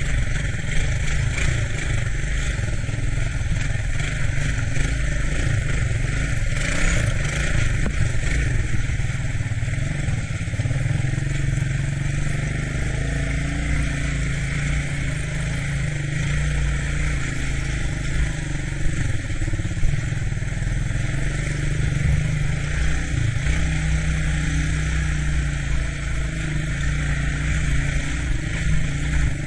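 ATC three-wheeler engine running steadily while being ridden, with no clear revs or stops.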